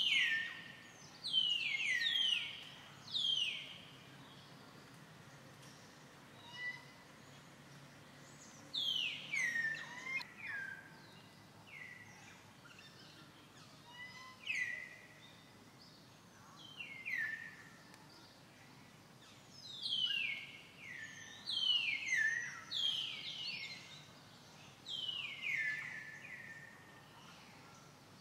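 Birds calling: short notes that fall steeply in pitch, often two to four in quick succession, with groups recurring every few seconds over a faint steady background.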